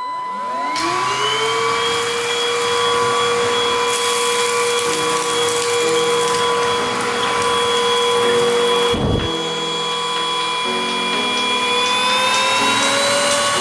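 Adler AD 7044 cordless stick vacuum switched on: its motor spins up in a rising whine over the first second or two, then runs steadily. Its pitch rises a little near the end.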